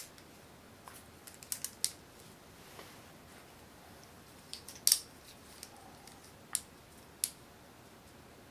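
Sharp clicks and taps of fibreglass quadcopter frame plates and arms knocking together as they are handled and fitted, a handful of separate clicks, the loudest about five seconds in.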